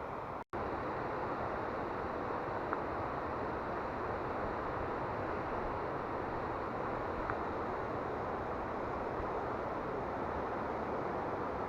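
Rushing water of the Toyohira River's mountain stream, a steady rush with a momentary gap about half a second in.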